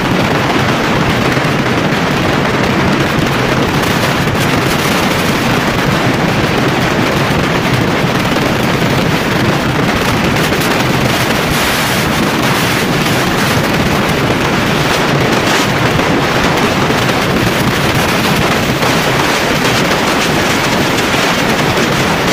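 Steady wind rush on the microphone of a Yamaha Lander 250 motorcycle riding at road speed, with road and engine noise beneath.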